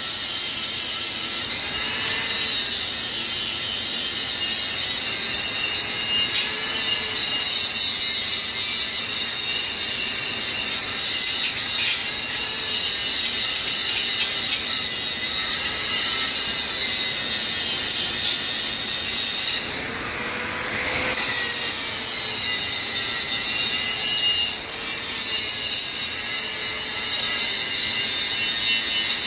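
Angle grinder grinding the edge of a welded steel log-splitting wedge to sharpen it: a steady gritty hiss with the motor's pitch wavering under load, easing briefly about two-thirds of the way through.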